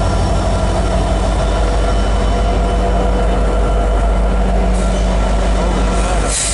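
Canadian Pacific freight train rolling past close by: a loud, steady rumble of steel wheels on the rails with a low hum running through it. A brief hiss comes right at the end.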